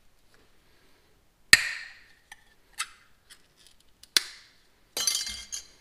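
Sharp metallic clicks and clinks from handling a 3M Window Weld urethane cartridge and pulling off its metal bottom cap by the ring tab. There are two single sharp clicks a few seconds apart, then a brief clattering clink with a faint ringing tone near the end.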